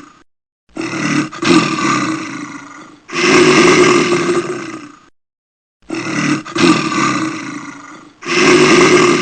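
A big cat roaring again and again, about one roar every two and a half seconds, each loud at the start and then fading away.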